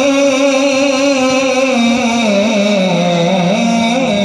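A man's solo voice singing a devotional rubai or naat into a microphone through a sound system. He holds long notes with a wavering, ornamented pitch, and the melody steps lower about halfway through.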